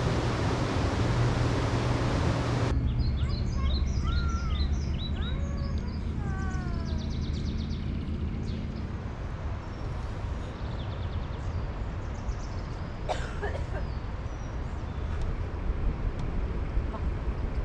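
Mountain river rapids rushing over boulders, cutting off suddenly about three seconds in. Then birds chirping and calling over a steady low rumble, with a brief knock about two-thirds of the way through.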